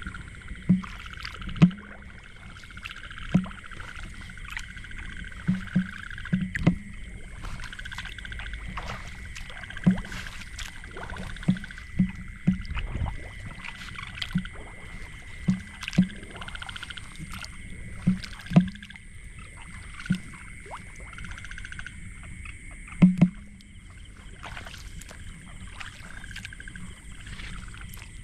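Night-time ambience of frogs calling and insects trilling steadily, broken by irregular sharp knocks every second or two, the loudest pair late on.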